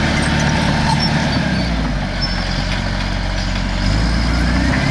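Caterpillar D5 wide-track bulldozer's diesel engine running loud and steady, its note shifting slightly about two and four seconds in.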